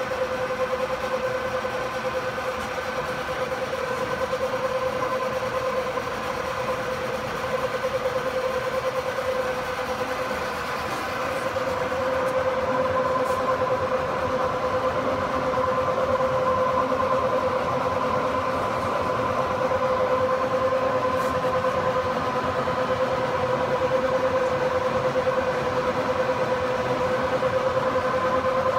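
Fellows 3 x 48 rack shaper running: a steady machine hum with a constant whine, growing a little louder about twelve seconds in.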